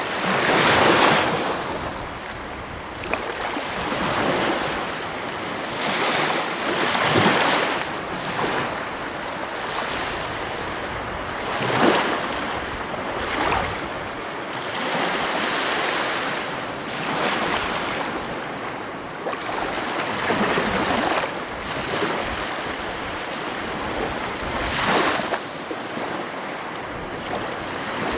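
Heavy ocean waves breaking on the coast: a continuous wash of surf with a louder crash every few seconds, some wind buffeting the microphone.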